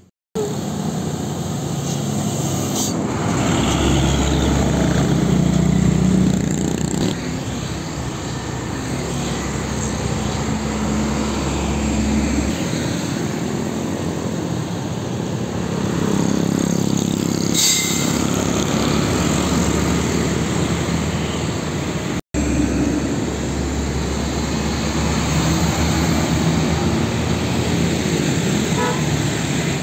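Roadside traffic: diesel cargo trucks and motorcycles driving past, a steady rumble of engines and tyres. It cuts out abruptly for a moment about three-quarters through.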